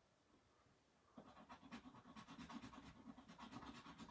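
Scratch-off game card being scratched, faint rapid back-and-forth scraping strokes starting about a second in.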